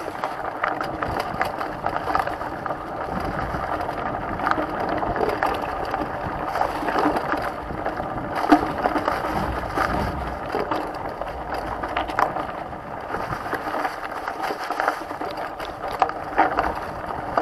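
Mountain bike rolling fast down a leaf-covered dirt singletrack: the tyres run over dry leaves and dirt, and the bike makes frequent clicks and rattles over bumps. The trail is slick under the leaves.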